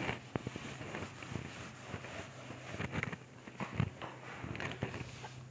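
Whiteboard being wiped clean: irregular rubbing and light knocks against the board, over a steady low hum.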